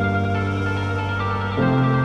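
Background ambient music of long held chords, moving to a new, lower-based chord about one and a half seconds in.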